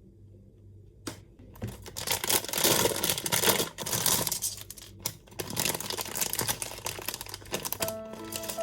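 Crinkly packaging being rustled and torn open, as a blind box is unwrapped. Music with steady held notes comes in near the end.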